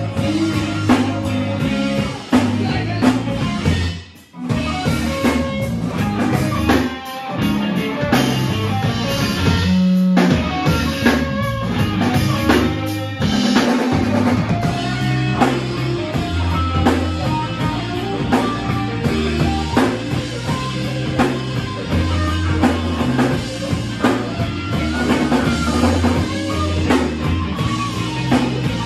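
Rock band playing live, with drum kit and guitar, stopping dead for a moment about four seconds in and then coming back in.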